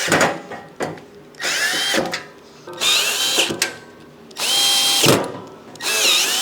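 Power drill driving screws in four short runs, its motor whining up to speed and winding down each time.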